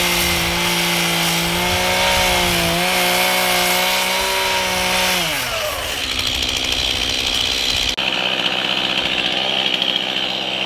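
Two-stroke chainsaw running at high revs while cutting a log notch, with a small dip in pitch partway through. About halfway in the revs fall away and the saw runs on at a lower speed.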